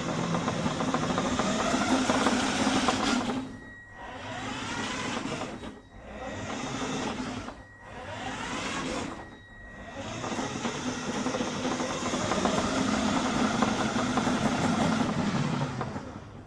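Electric motor and gear drive of a radio-controlled toy car running with a steady whine. In the middle it cuts out briefly four times, its pitch rising and falling between the breaks, then it runs on steadily again until it stops near the end.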